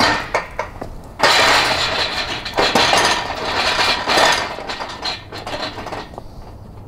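Steel chassis jig rolling on caster wheels across rough asphalt, its loose hub and rotor assemblies clinking and rattling: a loud rolling noise that starts abruptly about a second in and fades after about four seconds.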